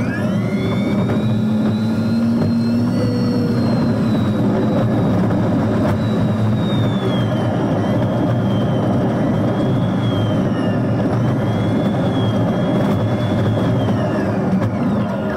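Yutong E12 electric bus driving, heard from inside the cabin in a sped-up recording: the electric traction motor's high whine rises over the first few seconds as the bus gathers speed, then wavers up and down with the driving and falls away near the end. Road and tyre rumble runs underneath.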